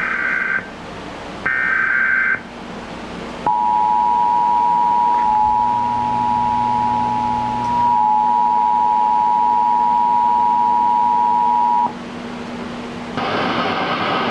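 Emergency Alert System signal played over TV: two short buzzy digital header squawks, then the steady two-tone attention signal held for about eight seconds before cutting off. About a second before the end, a louder hissy broadcast audio feed cuts in.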